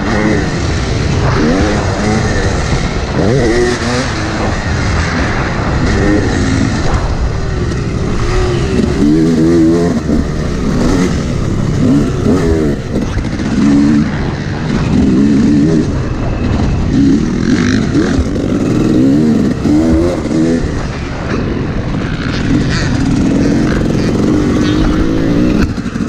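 2019 Yamaha YZ250X two-stroke dirt bike engine, heard from the rider's helmet camera, revving hard and then falling off over and over as the rider accelerates and backs off on the track. A steady rush of wind runs underneath.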